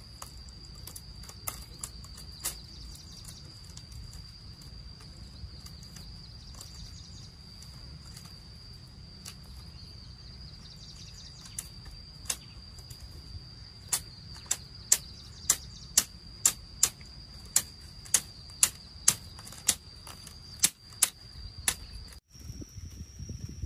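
Sharp knocks of a tool striking: a few scattered at first, then a steady run of about two a second through the middle and latter part. Under them is a steady high insect drone. Near the end the drone cuts off and lower rumbling noise takes over.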